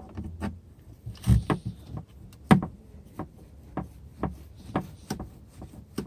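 A knife working at the Jeep door's uncut access holes: irregular sharp clicks and knocks as the blade is pushed in and pries at the panel, with the two loudest knocks about a second and two and a half seconds in.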